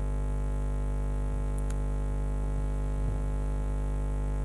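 Steady electrical hum with many harmonics, even and unchanging: mains hum picked up by the microphone and sound system.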